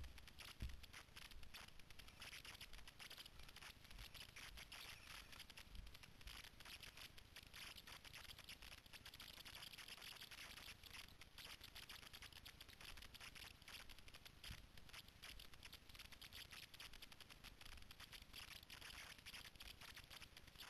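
Faint, continuous crackling and rustling of footsteps through dry leaf litter and undergrowth, with a soft thump or two near the start.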